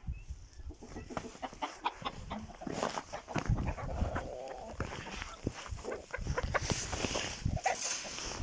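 Chickens clucking, among scattered short knocks and rustles.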